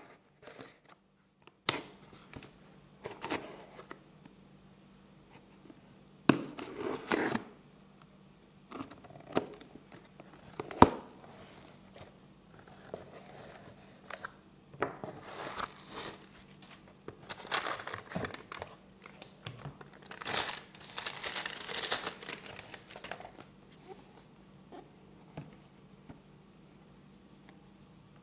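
A cardboard shipping box being opened: a box cutter slitting the packing tape, tearing sounds as the flaps are pulled open, and plastic air-cushion packaging crinkling. The sounds come in short scattered bursts, with one sharp click about eleven seconds in and a longer stretch of rustling near the end.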